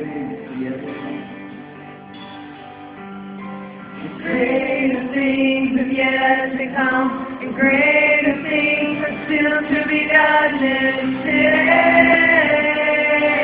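Live church worship music: a soft held accompaniment, then from about four seconds in men and women singing together, louder, with long held notes.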